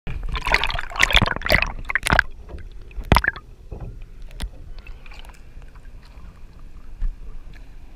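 Sea water splashing and sloshing around an action camera at the surface as it dips in and out of the water, loudest in the first two seconds, with a couple of sharp knocks about three seconds in and again a second or so later, then quieter lapping.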